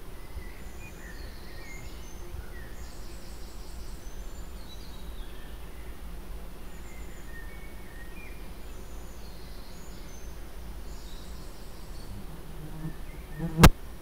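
Faint outdoor ambience: scattered high chirps and short insect-like buzzes over a steady low hum. A single sharp click comes shortly before the end, just after a brief low buzz.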